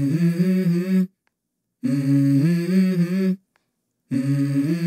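Wordless hummed vocal melody from a song's intro, in short held phrases that step between a few notes, with brief silences between phrases.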